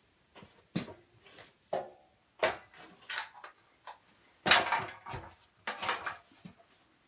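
A wooden carving block being set into and clamped in the jaws of a Worx portable workbench: a string of separate knocks and clatters of wood against the bench, the loudest about four and a half seconds in.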